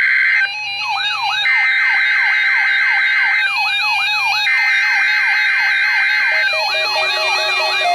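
Emergency Alert System SAME header data bursts from NOAA Weather Radio, the harsh buzzing tones that announce a Required Weekly Test. The bursts break off and come back twice. A siren-like rising whoop repeats about three to four times a second beneath them, and steadier lower tones come in near the end.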